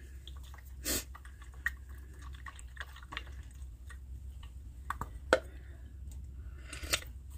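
Green tea sloshing inside an insulated drink bottle as it is shaken, with small scattered knocks and clicks from the bottle being handled; a few louder knocks about a second in, around five seconds in and near the end.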